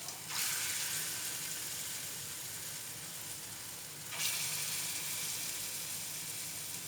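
Spoonfuls of lentil (dal bora) batter frying in hot refined vegetable oil in a frying pan, with a steady sizzle. The sizzle surges just after the start and again about four seconds in, as fresh batter goes into the oil, then eases off.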